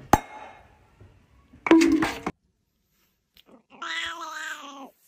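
A sharp pop from a cork shot out of a bottle, followed about a second and a half later by a loud, short outburst. After a cut, a cat meows once for about a second, its pitch falling.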